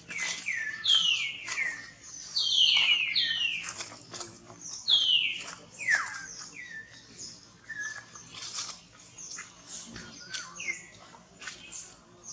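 Baby monkey crying: a rapid string of high, falling squeals, thickest in the first few seconds and sparser toward the end.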